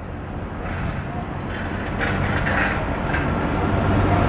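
A Mitsubishi Fuso light truck driving past close by, its engine and tyre noise growing louder as it nears and loudest near the end, over a steady low rumble.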